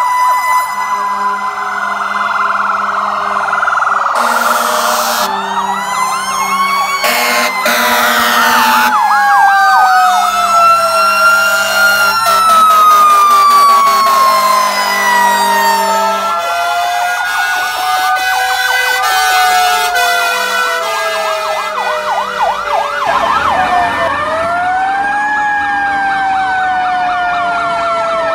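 Several fire trucks' sirens sounding together as they pass: a slow rise-and-fall siren winding up and down over several seconds, overlapped by faster electronic wails. Repeated steady air-horn blasts sound over them through the first half. A single slow siren rises and falls near the end.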